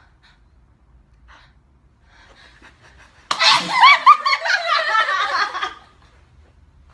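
About three seconds in, a young woman's imitated sneeze bursts out suddenly and breaks into laughter, lasting about two and a half seconds.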